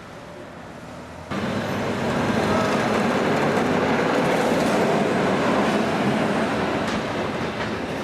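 Rail vehicle running, with a steady rumbling, rattling ride noise that starts suddenly about a second in.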